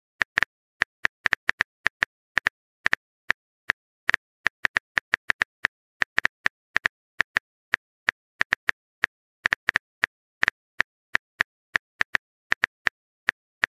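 Keyboard typing clicks: a run of short, sharp taps at an uneven pace, several a second, like keystrokes on a phone's on-screen keyboard.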